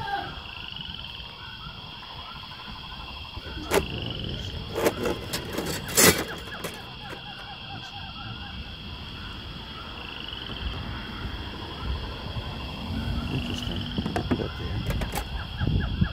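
Metal saw blades and abrasive cutoff discs clinking and knocking together as they are handled in a pile: a few sharp clinks about four to six seconds in, the loudest near six seconds. A faint steady high tone and low rumbling run underneath.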